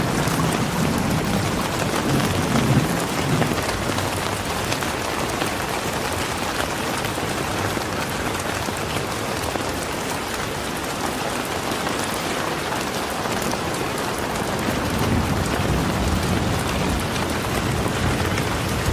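Steady rain falling, with a low roll of thunder dying away in the first few seconds and another low rumble building near the end.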